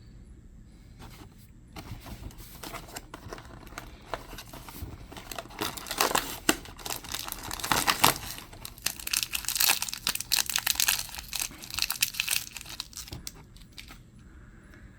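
A toy blind bag being torn open and crinkled by hand: a dense run of rustling and ripping that starts about two seconds in, is loudest midway, and dies away near the end.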